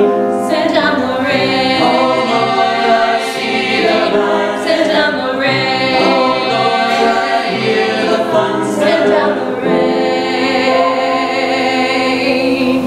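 Small mixed vocal ensemble of women's and men's voices singing a choral piece in harmony. A little under ten seconds in they settle on a long held chord, released right at the end.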